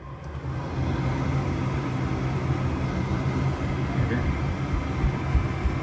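Goodman gas furnace's fan motor spinning up over about a second, then running steadily with a low hum and a rush of air as the furnace is brought back into service after its flame sensor was cleaned.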